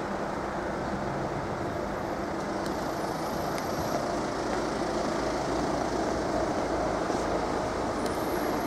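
Low rumble of an approaching Class 377 electric train, slowly growing louder as it nears the level crossing.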